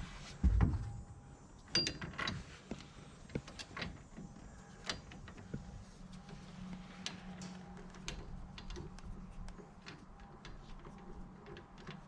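Hand tools clicking and clinking against metal as the hub bolts are worked in, with irregular sharp clicks and knocks. One heavy thump comes about half a second in, over a low steady hum.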